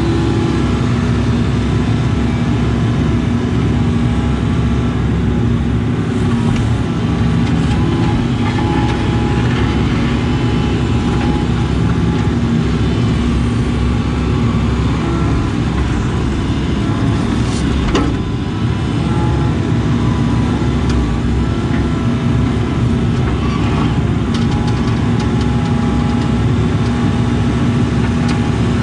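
Case CX80 excavator's diesel engine running steadily under load, heard from inside the cab, with higher whining tones from the hydraulics coming and going as the bucket digs a trench. A single sharp knock comes about 18 seconds in.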